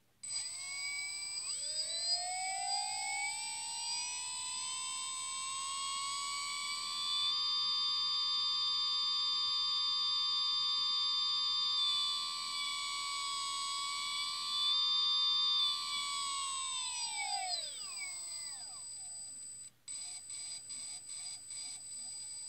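Sunnysky V2216-15 650 kV brushless outrunner motor, run without a propeller, whining as it spins up with rising pitch, holding a steady high whine with small throttle steps, then winding down with falling pitch. Near the end comes a quick run of short, evenly spaced pulses.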